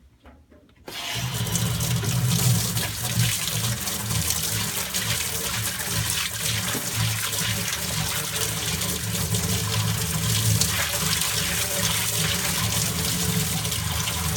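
Tap water running hard into a tub, turned on about a second in and then pouring steadily.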